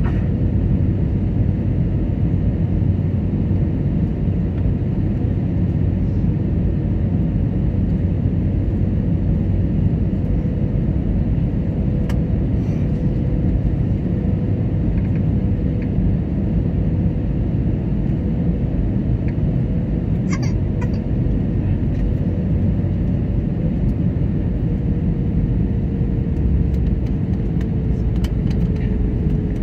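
Steady cabin noise of an Airbus A320neo in descent: a low rumble of airflow and its Pratt & Whitney PW1100G geared-turbofan engines, with a faint hum that slowly drops in pitch in the second half. A few faint clicks come about two-thirds of the way through.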